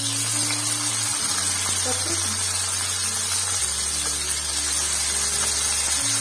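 Turmeric-coated rohu fish steaks sizzling in hot mustard oil in a frying pan as more pieces are laid in, a steady frying hiss. A low steady hum runs underneath, shifting pitch a few times.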